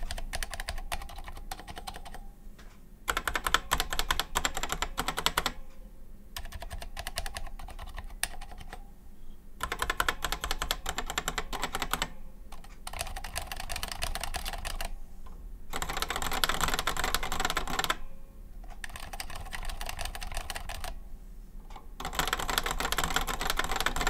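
Typing comparison in short stretches of rapid keystrokes with brief pauses between them, switching between two keyboards: the 1975 Decision Data 8010 with Honeywell (Micro Switch) dual-magnet Hall effect linear switches and large keycaps, which give a deep clack, and a board with Ace Partec Hall effect linear switches.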